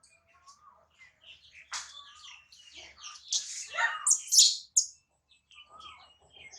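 Newborn baby monkey's high-pitched squeaks and chirps, a run of short calls that grows busier and louder in the middle and thins out near the end.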